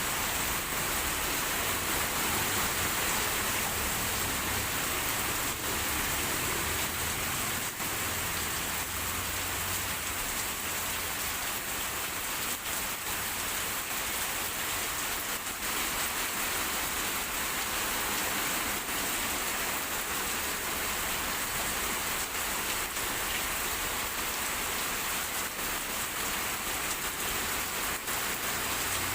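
Heavy rain pouring steadily, an even hiss of rain falling on hard surfaces.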